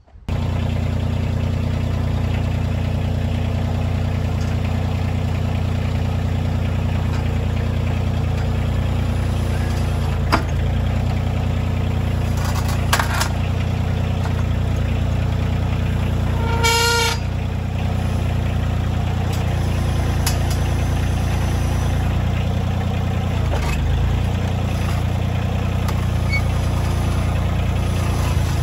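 Kioti CK2610 compact tractor's three-cylinder diesel engine running steadily while the tractor backs its rear carry-all forks under a stack of pallets. A few light knocks and one brief high squeal come a little past the middle.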